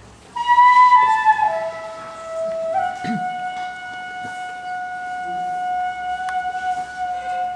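Japanese bamboo transverse flute (fue) playing a solo phrase. A high note enters about half a second in and steps down over the next second, then one long note is held steady from about three seconds in.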